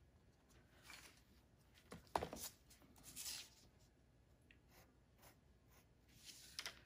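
Wooden pencil scratching on paper in short, quick sketching strokes, faint, a stroke or small cluster of strokes every second or so. The loudest comes about two seconds in.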